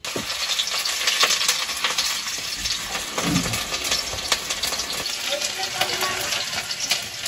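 Steady sizzling hiss dotted with small crackles at a wood-fired mud stove with a wok on it.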